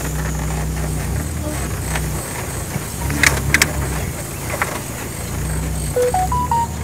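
Pickup truck driving slowly over a bumpy grass pasture, heard from the open cargo bed: a steady low engine and wind rumble, with a few sharp rattles a little past halfway. A short run of high notes sounds near the end.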